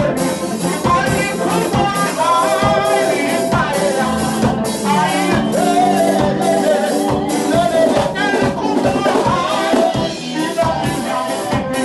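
A live band jamming a reggae tune on drum kit, guitar and keyboard, with the drums keeping a steady beat.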